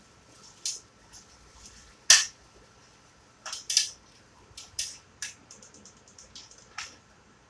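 A thin plastic bag being handled, crinkling in short, sharp crackles and clicks with pauses between; the loudest crackle comes about two seconds in.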